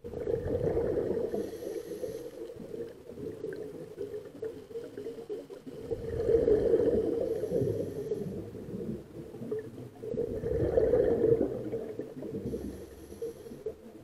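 Scuba diver breathing through a regulator underwater: three breaths, each a swell of gurgling, rumbling exhaled bubbles followed by a short hiss.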